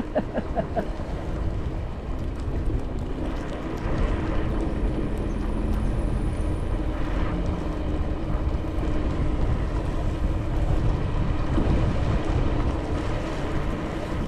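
Riding an electric scooter: wind rumbles on the action camera's microphone over the tyre and ride noise, with a faint steady hum.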